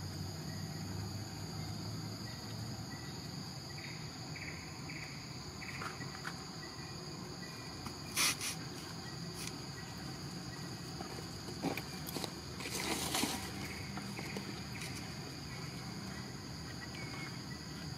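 Steady, high-pitched drone of insects in the forest, holding an even pitch throughout. A few short, louder noises cut in about eight seconds in and again around thirteen seconds.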